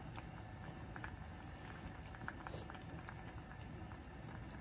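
Pot of sour curry simmering on a gas stove: faint, steady bubbling with small irregular pops and ticks.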